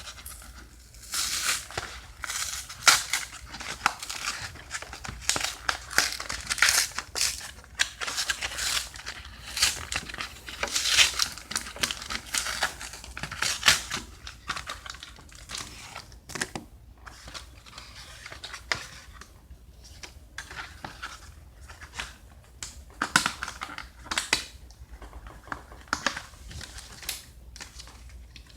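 Plastic blister packaging of a trading-card blister pack being crinkled and torn open by hand: irregular crackling and tearing, busiest in the first half and sparser toward the end.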